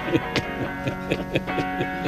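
Background music: a guitar playing short plucked notes over a steady sustained tone.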